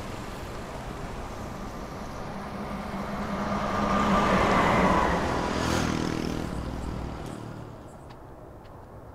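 Street traffic with a lorry passing close: its engine grows louder about three seconds in, peaks around five seconds and fades away, leaving quieter road noise near the end.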